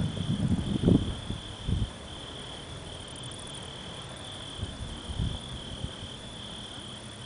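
Crickets chirping in a steady, evenly pulsing high trill. Low, irregular rumbling sounds under it in the first two seconds, loudest about a second in, with a fainter rumble around five seconds in.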